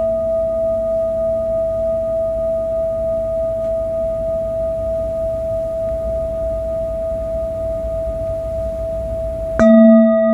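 Large metal singing bowl ringing with a steady, sustained tone that pulses about three times a second as it slowly fades. Near the end it suddenly jumps louder and fuller.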